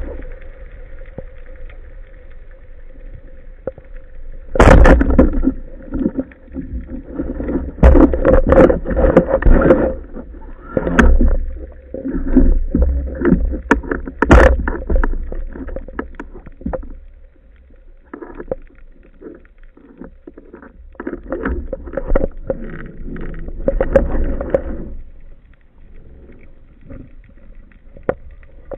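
Water noise through an underwater camera housing as a diver swims: irregular loud surges of rushing, gurgling water, over a steady faint hum.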